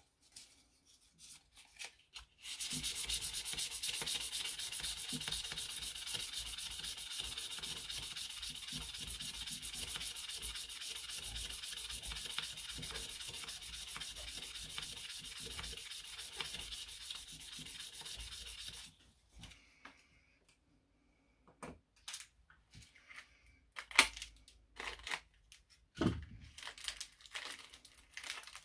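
Abrasive held against a pen blank spinning on a small lathe: a steady sanding hiss that starts a few seconds in and stops about two-thirds of the way through. Scattered clicks and knocks of handling follow.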